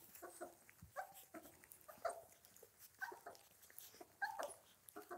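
German shorthaired pointer puppies nursing, giving faint short squeaks and whimpers several times, with small clicks of suckling between them.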